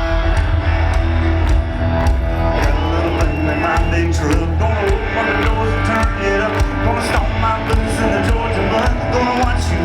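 Live country-rock band playing loud through a concert PA, with a steady drumbeat, heavy bass and guitars.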